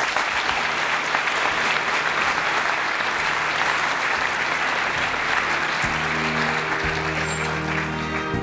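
Audience applauding steadily, with music starting up under the clapping about six seconds in.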